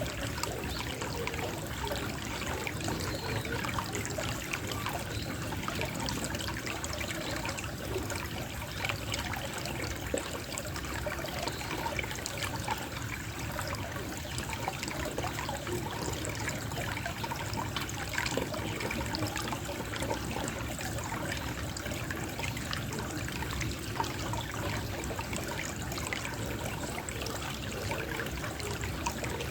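A small flow of water trickling and gurgling steadily with fine splashy detail.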